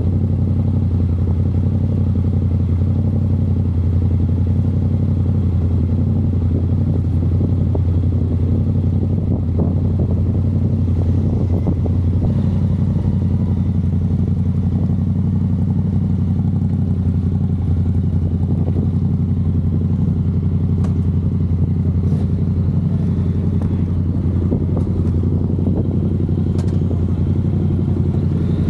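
Honda NC750X's parallel-twin engine idling steadily, heard close up.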